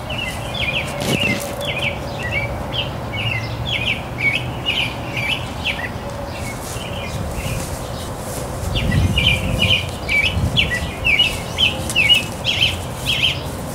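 A small bird chirping over and over outdoors, short high chirps about two or three a second, pausing for a couple of seconds mid-way and then starting again. A brief low rumble about nine seconds in.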